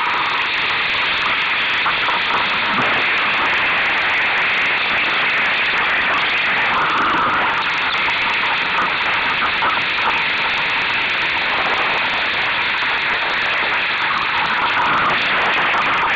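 Steady rushing noise of wind and water around a Solo sailing dinghy under way, picked up by a small onboard camera's microphone.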